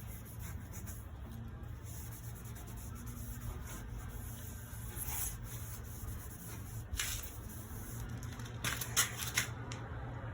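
A cleaning pad rubbing cleaning solution over a cloudy plastic headlight lens, in scratchy strokes that grow louder and quicker near the end, over a steady low hum.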